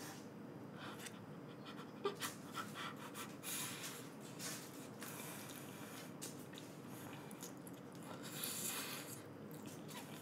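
Quiet close-up eating sounds from someone eating stir-fried instant noodles: chewing, small mouth clicks and smacks, chopsticks tapping, and several breathy puffs and hisses of air.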